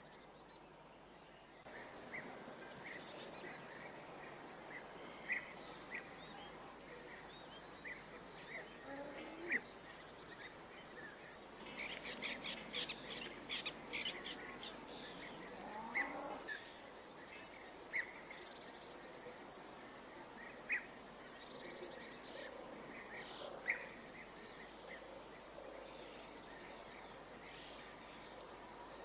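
Evening outdoor ambience: crickets trilling steadily, with birds giving short chirps every couple of seconds and a quick flurry of calls midway.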